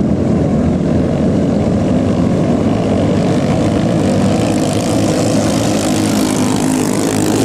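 Ketinting longtail racing boats in the 6–7 horsepower engine class running flat out, a steady, loud engine drone. A hiss grows from about four seconds in as one boat passes close.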